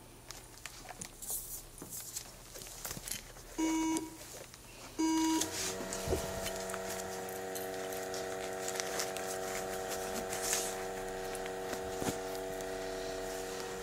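Breath-alcohol test instrument sounding two short electronic beeps about a second apart, then a steady electronic hum starting up and running on, with small handling clicks.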